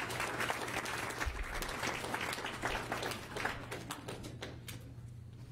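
Audience applauding, the claps thinning out and dying away about five seconds in.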